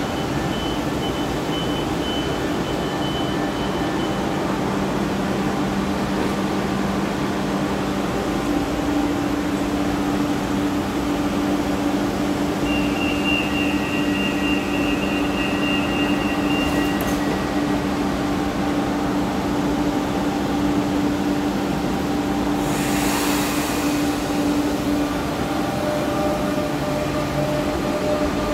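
Cercanías electric commuter train running with a steady electric hum, a few high whining tones coming and going in the middle, and a short burst of hiss lasting about a second and a half near the end.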